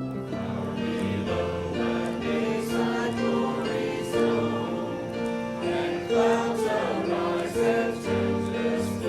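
Gospel-style Christian music with a choir singing held chords.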